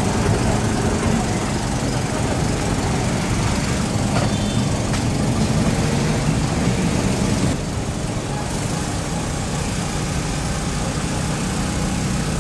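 An engine running steadily with a low hum; it drops a little in level about two-thirds of the way through.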